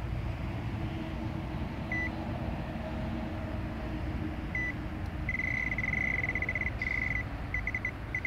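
Electronic bite alarm on a fishing rod beeping as the line is moved across it by hand: two single short beeps, then a fast unbroken string of beeps for about a second and a half, then a few short clusters of beeps near the end.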